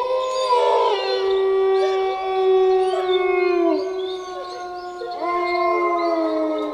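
Several wolves howling together, long held howls overlapping at different pitches. One howl slides down and fades about four seconds in, and a new howl rises in about five seconds in.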